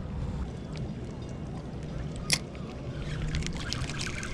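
Small waves lapping against a rocky shoreline over a steady low rumble, with one short click a little over two seconds in.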